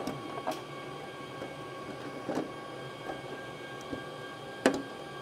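Plastic air shroud and parts being handled and fitted into an open Dell PowerEdge T560 tower server chassis: a few light clicks and knocks, the loudest near the end. Under them runs the steady hum of the lab's rack servers' fans.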